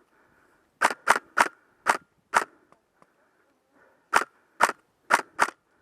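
Airsoft replica rifle firing single shots, nine sharp snaps in two quick strings: five, then a pause of about two seconds, then four more.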